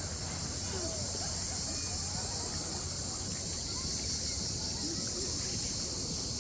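A chorus of cicadas making a continuous, steady high-pitched buzz, with a low steady rumble beneath.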